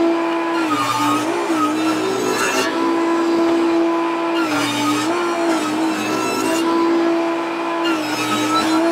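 Benchtop table saw running steadily while ripping thin strips off a 3/4-inch pine board. Three times the motor's hum drops a little in pitch and the hiss of the blade cutting wood swells as the board is pushed through.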